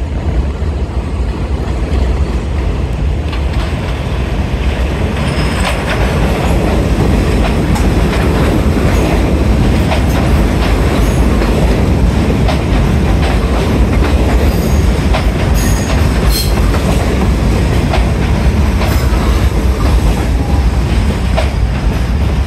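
R68A New York City subway train running in on curved elevated track and passing close by: a loud, steady rumble of wheels on rail that builds over the first couple of seconds, with clicking over the rail joints and a few brief high squeals.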